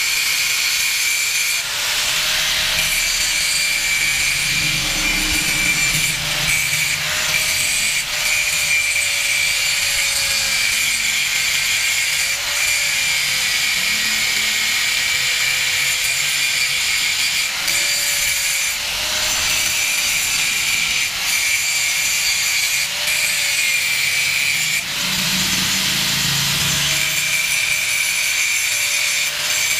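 Electric angle grinder cutting into steel, a steady high whine over the hiss of the disc on metal. The whine wavers slightly in pitch now and then.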